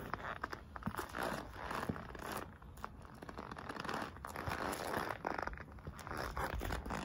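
Rubber soles of white Nike Air Force 1 Mid sneakers treading on and squashing bananas on a gritty concrete slab: a run of irregular squashing and scuffing sounds, several a second.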